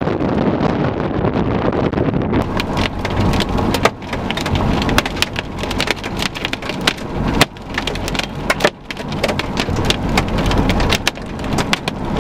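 Wind buffeting the microphone with a low rumble. Then, about two seconds in, raindrops start striking the car's windshield and body as dense, irregular sharp hits over the rumble.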